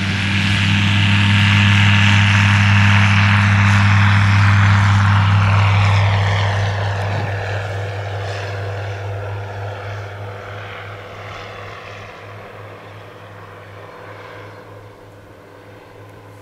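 EuroFox K2 light aircraft taking off at full power, its engine and propeller loud and steady as it passes. About six seconds in the pitch drops as it goes by, and the sound fades steadily as it climbs away.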